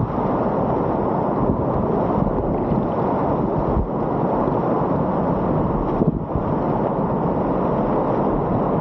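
Whitewater of a river running at high water: a steady, loud rush of rapids.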